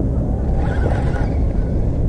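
A steady low rumble, with a brief higher whir about half a second in.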